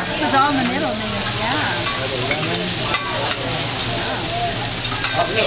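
Shrimp and other food sizzling on a hot hibachi flat-top griddle: a steady frying hiss. Diners' voices are in the background.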